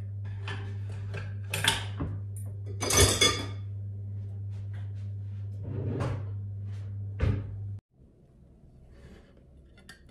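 Kitchenware being handled on a counter: a few knocks and clatters, the loudest a short clatter about three seconds in, over a steady low hum. The hum stops abruptly about eight seconds in, leaving quieter room sound.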